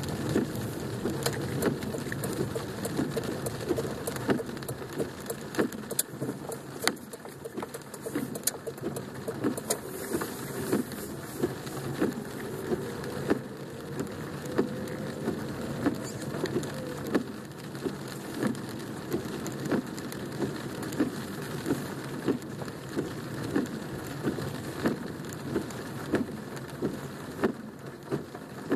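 Rain falling on a car, heard from inside the cabin: a steady patter with frequent sharp taps of individual drops striking the roof and windshield.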